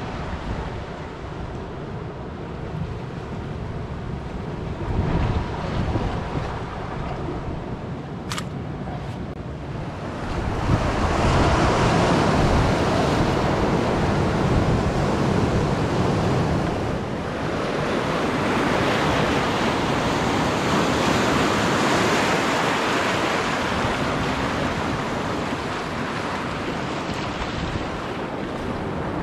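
Sea surf washing against a rocky shore, with wind buffeting the microphone; the wash swells louder about ten seconds in and again a few seconds later. A single sharp click sounds about eight seconds in.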